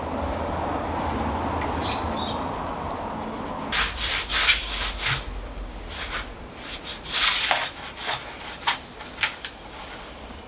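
Wood-repair wax crayon rubbed onto a veneered wooden dashboard trim to fill broken edges: after a few seconds of steady low background noise, a run of short, irregular scratchy rubbing strokes starts about four seconds in.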